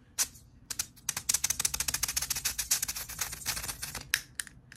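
Butane refill can being pressed again and again against a lighter's refill valve, giving a rapid run of ticking hissy spurts of escaping gas, about ten a second. The refill is not taking, because the can is held the wrong way up.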